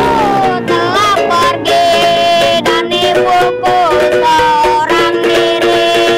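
Background music: a melody with sliding notes over plucked strings, at a steady level.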